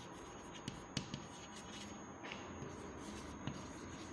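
Chalk writing on a chalkboard: faint scratching of the chalk stick forming letters, with a few sharp taps as the chalk strikes the board, the clearest about a second in.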